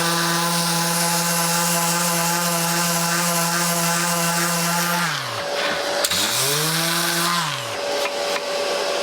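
Electric power sander with 80-grit paper running steadily over a glued seam, the sanding dust mixing with the wet wood glue to make a colour-matched filler. About five seconds in it winds down, spins briefly back up, and winds down again.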